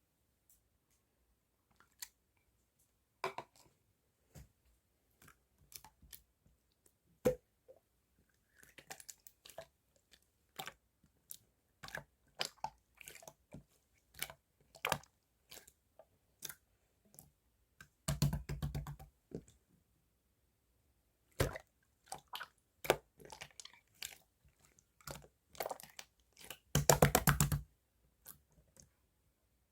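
Clear slime being pressed and folded by hand, giving scattered sharp clicks and pops, with two longer runs of rapid crackling pops about eighteen seconds in and again near the end.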